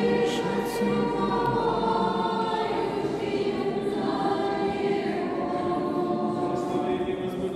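A congregation of many voices singing together, unaccompanied, in long, slow held notes inside an Orthodox church.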